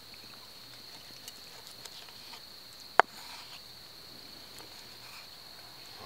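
Crickets chirring in a steady high trill, with faint ticks of a knife slicing cooked steak on a wooden cutting board and one sharp knock of the blade about three seconds in.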